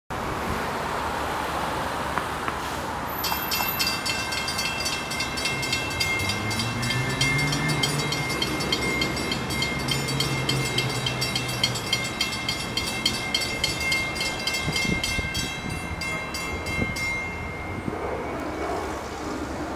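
Railroad grade-crossing warning bell ringing rapidly, starting a few seconds in and stopping near the end, over steady road-traffic noise. It signals a train approaching the crossing.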